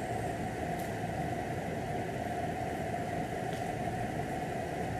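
Steady whirring background noise, as of a fan or motor running, at an even level, with two faint short ticks, one just under a second in and another about three and a half seconds in.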